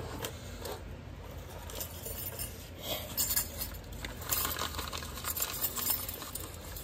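Light metallic clinks and rattles of small metal parts being handled, sparse at first and busiest around the middle.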